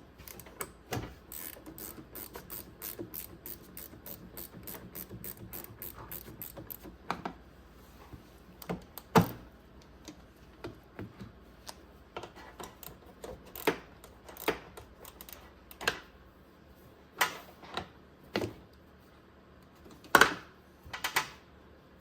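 Hand socket ratchet clicking in a fast, even run as it loosens a battery side-post terminal bolt, followed by scattered single clicks and a few sharper knocks of the tool on the bolt and terminal.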